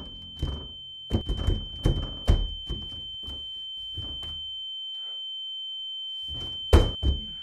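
Metal lever door handle rattled and yanked again and again on a door that won't open, a rapid series of clacks and knocks, then a pause and two heavy thuds near the end as the door is wrenched at. A steady high-pitched tone sounds throughout.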